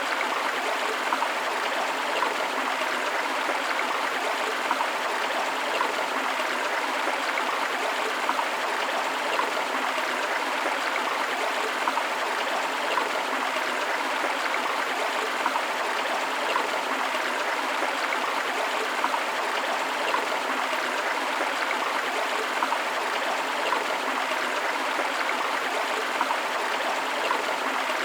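A forest stream flowing steadily: a continuous rush of running water with small splashes throughout.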